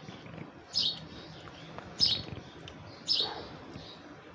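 A bird chirping repeatedly: three short, high calls, evenly spaced about a second apart.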